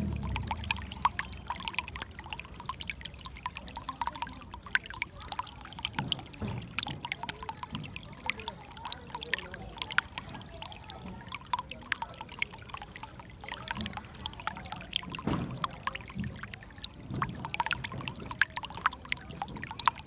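Shallow water flowing and splashing over stones: a steady trickling with constant small irregular splashes and occasional low gurgles.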